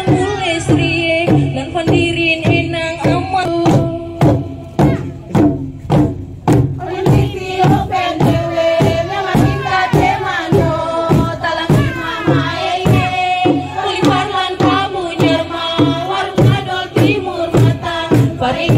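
A large drum beaten in a steady, even beat, about two to three strokes a second, accompanying a traditional welcome dance. A group of voices sings a chant-like song over the drum.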